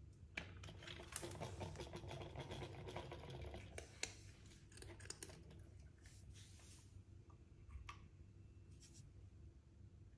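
Faint clicking and rustling of hands handling small plastic bottle caps, with a sharper tap about four seconds in. After about six seconds it drops to a few soft ticks.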